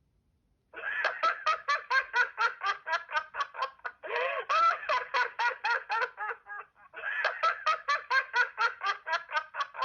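Alcatel OT 715 mobile phone playing one of its default ringtones: a fast run of short electronic notes, about five or six a second, in three phrases with brief breaks between them, starting under a second in.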